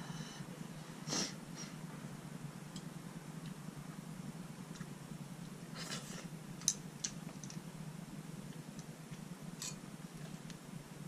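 Quiet mukbang eating sounds: a few soft slurps and mouth noises and a sharp click or two, with chopsticks going into the takeaway bowl near the end, over a steady low hum.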